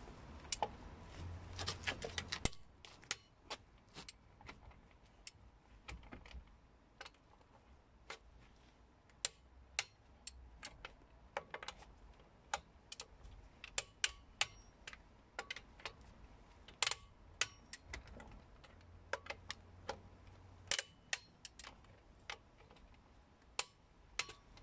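Irregular light metallic clicks of a ratchet wrench and socket on wheel bolts, with a quick run of clicks about two seconds in, as the wheel bolts are run in and tightened.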